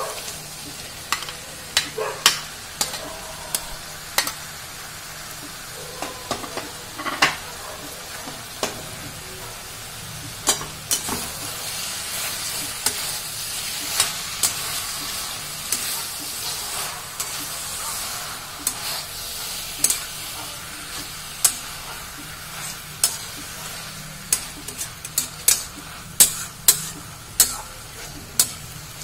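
Oyster mushrooms frying with a steady sizzle in a metal wok of yogurt-and-spice paste, stirred with a steel spatula that clicks and scrapes against the pan many times. The clicks come more often near the end.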